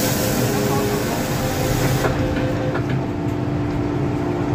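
The doors of an MTR M-Train close: a high hiss and a broken, repeating warning tone, then the door leaves meet with a knock about two seconds in. A steady tone from the train carries on after.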